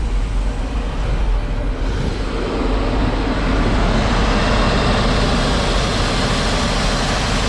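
1978 Chevy C50's 350 V8 running just after an instant start on a newly fitted ignition switch, a steady low rumble that fills out about two seconds in.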